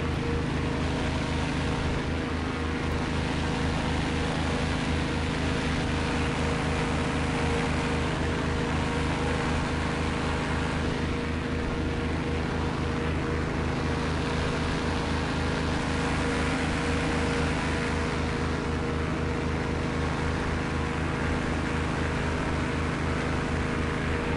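Sevtec Vanguard hovercraft running under way, heard on board: a steady engine-and-fan drone made of several held tones with a fast low pulsing, over a constant rushing noise.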